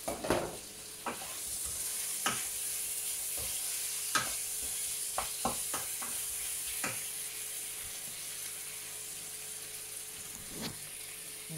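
Chicken breast pieces sizzling in a frying pan, a steady high hiss, with a series of sharp clacks and knocks from a utensil and things being handled on the worktop.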